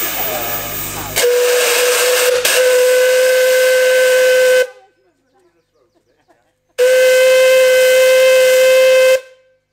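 Narrow-gauge steam locomotive's whistle blown in two long blasts: a steady high note with a brief catch partway through the first, after a moment of steam hiss.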